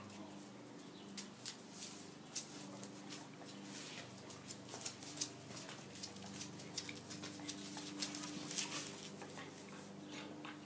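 Basset hound and beagle scuffling on a tiled floor: a run of sharp clicks and scrapes, thickest near the start and again about three-quarters through, over a faint steady hum.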